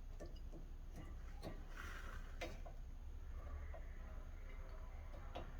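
Faint, scattered metal clicks and short scrapes of a brake pad being worked into new pad clips on a caliper bracket, a tight fit.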